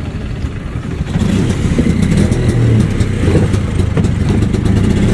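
Auto-rickshaw engine heard from inside the passenger compartment, running and getting louder about a second in as it revs up.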